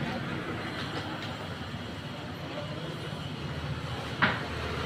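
Street background noise: a steady low hum of distant traffic, with one sharp knock about four seconds in.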